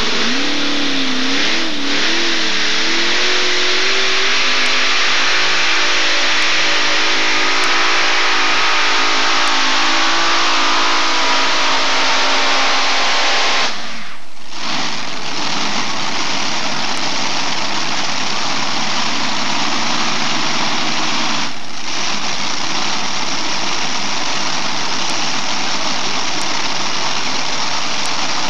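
Multi-engine unlimited modified pulling tractor: its engines are revved unevenly for the first few seconds, then run at full throttle with the pitch climbing steadily. The sound breaks off briefly at about 14 s and again at about 22 s, and each time carries on as another loud full-throttle engine run.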